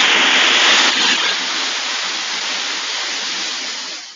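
A loud, steady rushing hiss like air or running water. It eases slightly about a second in and fades out just after four seconds.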